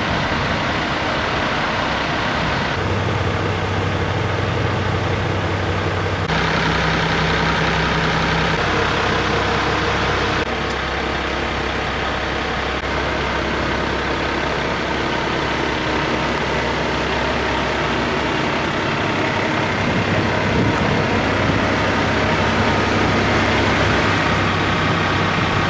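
Engines of rotary snow-removal vehicles idling with a steady hum. The tone shifts abruptly a few times, about 3, 6 and 10 seconds in.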